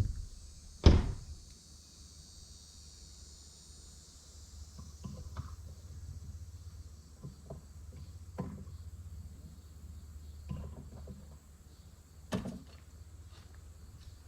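Scattered knocks and clunks of old wooden barn-door boards and trim being pulled off and handled. One sharp, loud knock comes about a second in, and a few softer ones follow later.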